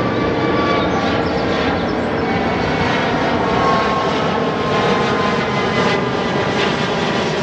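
Jet engines of a taxiing Boeing 777-200ER running at low taxi power: a steady, even noise with thin whining tones.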